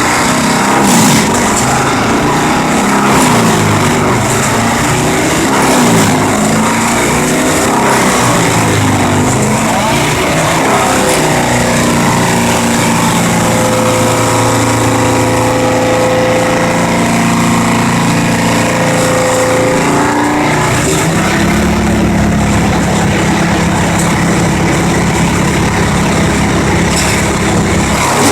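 Wood chipper running loud and continuously. Its engine pitch shifts up and down, then settles to a steady lower note about twenty seconds in.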